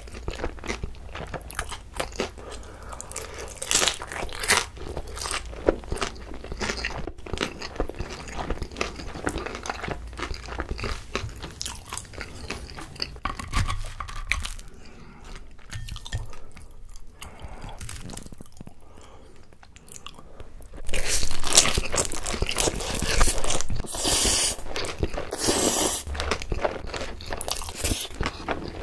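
Close-miked chewing and crunching of pan-fried pollack-roe dumplings, the crisp fried skin crackling between the teeth. It goes quieter for a few seconds past the middle, then a louder run of bites and mouth noise starts about two-thirds of the way through.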